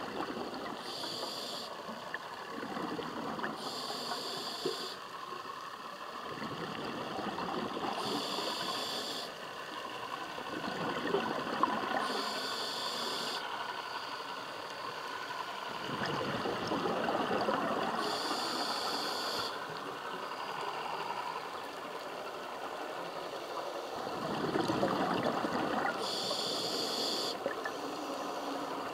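Scuba diver breathing underwater through a regulator: a high hiss on each inhalation, heard six times a few seconds apart, between stretches of rushing, crackling exhaled bubbles.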